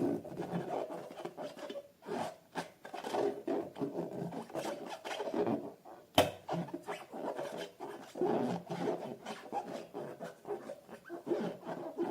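Slime being squeezed and stretched by hand: a run of irregular squelches and small popping clicks, with one sharp click about six seconds in.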